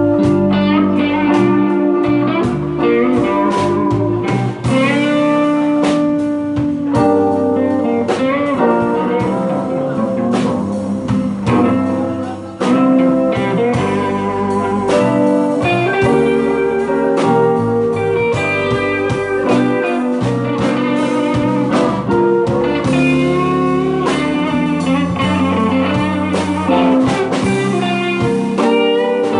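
Live blues band playing an instrumental passage: guitar leading with bending notes over bass and a steady drum beat.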